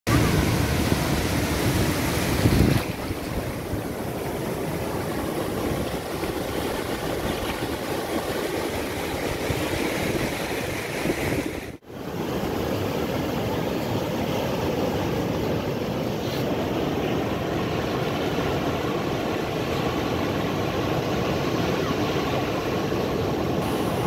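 Sea surf on a sandy shore: small waves breaking and washing up the beach in a steady rush. A low rumble is heavier for the first couple of seconds, and the sound drops out for an instant about halfway through.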